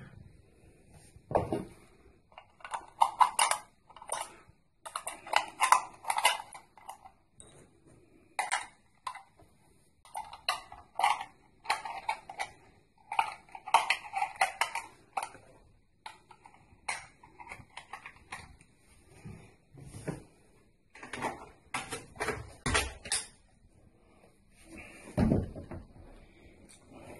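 Brass rifle cartridges (.338 Lapua Magnum) clinking against each other as they are handled, in clusters of quick metallic clicks. A single dull knock near the end.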